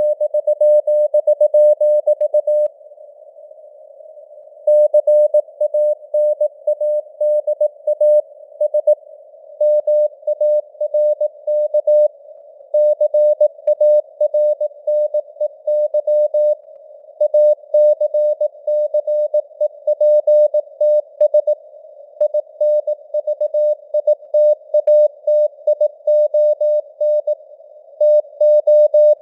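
Morse code sent at 18 words per minute as a single keyed tone, short dits and long dahs broken by longer gaps between words. A narrow band of simulated radio hiss sits around the tone, and the signal strength fades up and down (QSB).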